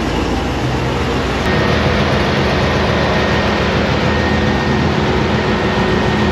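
Supercharged V8 of a Chevrolet Silverado running at idle under the open hood, a steady loud mechanical hum. About a second and a half in it gets a little louder and a thin, steady high whine joins it.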